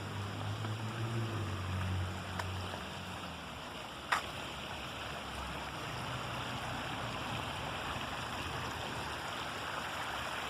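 Steady rush of running water from a stream or cascade, with one sharp click about four seconds in.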